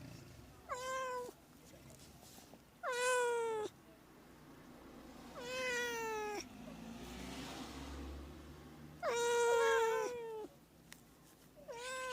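A domestic cat meowing repeatedly: about five drawn-out meows, a couple of seconds apart, each falling slightly in pitch.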